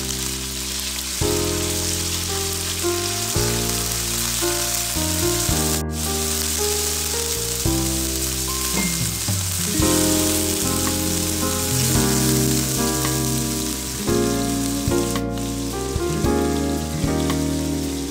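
Chicken pieces and minced garlic sizzling steadily in hot oil in a wok as they are sautéed. Background music with changing chords plays over it.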